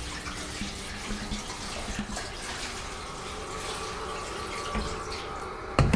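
Apple cider vinegar pouring from a gallon plastic jug into the filler opening of a car's steel fuel tank, a steady stream of liquid running in. A sharp knock comes near the end.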